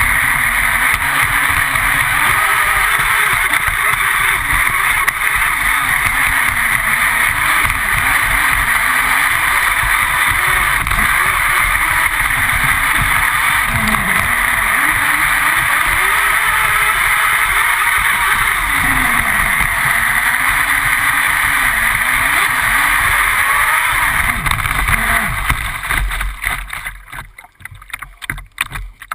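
Radio-controlled speedboat running at speed, heard from a camera on its own deck: a steady rush of water and wind with a motor note that rises and falls as the throttle changes. About 25 seconds in the noise drops away and turns choppy as the boat slows.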